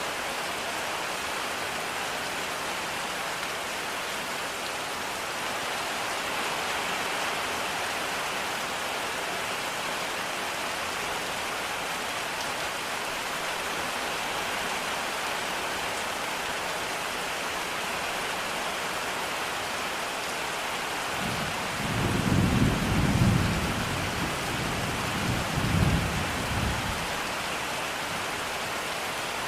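Steady rain falling. About three-quarters of the way through, a low roll of thunder swells up, peaks twice and fades away within a few seconds.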